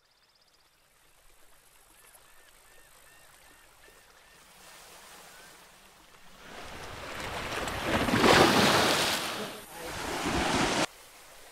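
Ocean surf washing onto a beach: a faint wash that swells to a loud surge of breaking water about eight seconds in, then cuts off abruptly near the end.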